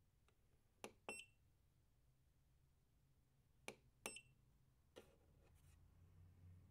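Faint clicks of buttons being pressed on an electronic device, in two pairs. The second click of each pair comes with a short, high electronic beep, and one more click falls near the end.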